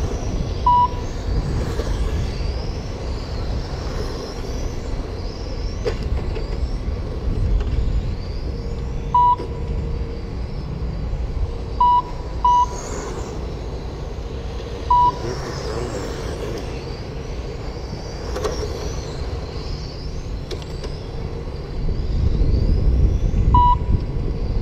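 Electric radio-controlled touring cars racing, their motors whining up and down in pitch as they accelerate past. Short electronic beeps, about six of them, come from the lap-timing system as cars cross the timing loop. A low wind rumble on the microphone grows louder near the end.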